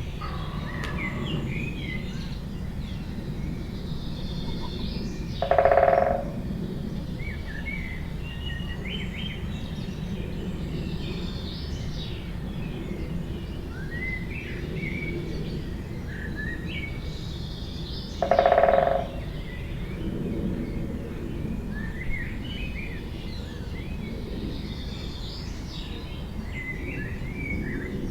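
Forest birdsong: several small birds chirping and singing in short high phrases over a steady low background rumble. Twice, about twelve seconds apart, a louder, lower call of about half a second stands out.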